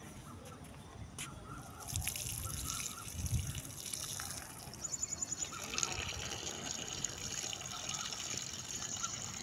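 Water poured from above, trickling and splashing onto the soil of a plant pot. It starts about two seconds in and runs fuller from about halfway.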